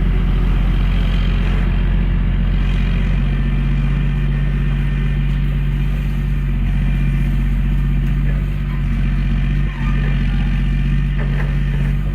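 An engine running steadily with a loud, even low drone, starting abruptly just before this stretch and holding unchanged, with a brief dip near the 10-second mark.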